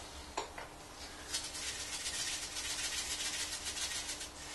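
Small hand pepper mill grinding peppercorns: a fast, even crackling rattle, several clicks a second, that starts about a second in and lasts about three seconds.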